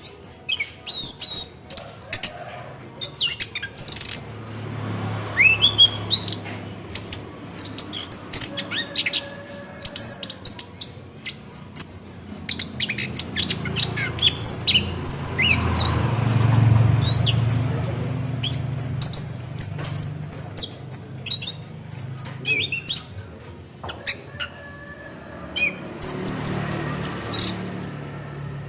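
Orange-headed thrush singing a continuous rolling song of rapid, varied high notes, squeaks and short glides, over a low background rumble.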